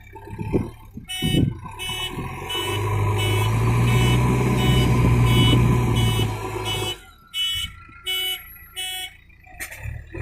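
JCB 3DX backhoe loader's diesel engine running, with its reversing alarm beeping about twice a second. About seven seconds in the engine sound drops away and a few more beeps follow.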